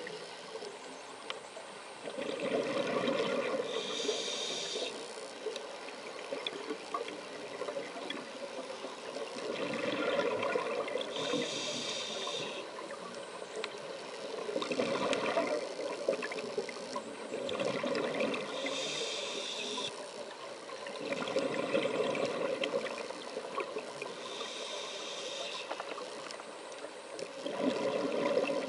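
Scuba diver breathing through a regulator underwater: a bubbling exhalation surge, then a short hiss of inhalation, repeating about every six to seven seconds.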